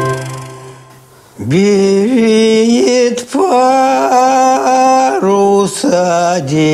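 A man's voice singing long held notes without words, sliding up and down between them, starting about a second and a half in after the tail of a musical chord fades out.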